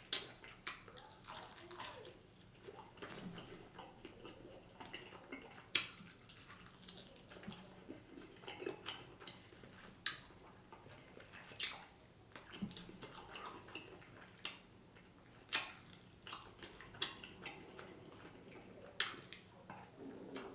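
Close-miked eating of Buffalo wings: wet chewing and mouth smacking, with sharp crunchy clicks scattered every second or two.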